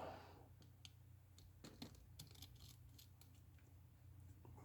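Near silence with a few faint, light clicks of a small precision screwdriver working the tiny screws inside an iPhone XS.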